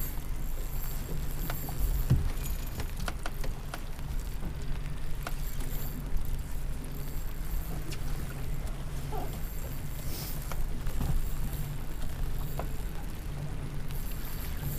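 Small boat on open water: a steady low hum with scattered light knocks and clicks on the hull and gear.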